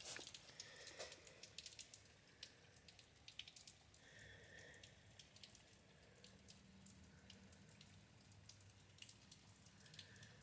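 Faint rain with water dripping, heard through a closed door: many small, irregular ticks of drops.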